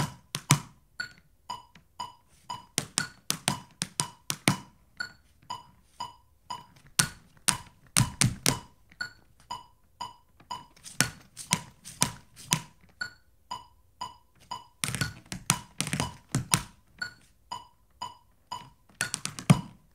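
Tap shoes striking a wooden board in quick rhythmic phrases of about two seconds, each followed by a pause of about two seconds: one bar danced, one bar left open for a reply. A steady light ticking beat, about twice a second, keeps time under the taps and through the pauses.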